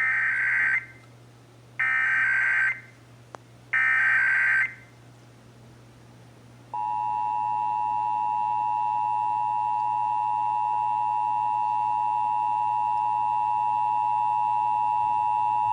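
Emergency Alert System signalling for a Required Monthly Test. First come three short bursts of screeching digital SAME header data, about a second apart. About seven seconds in, the steady two-tone EAS attention signal (853 and 960 Hz together) begins and holds.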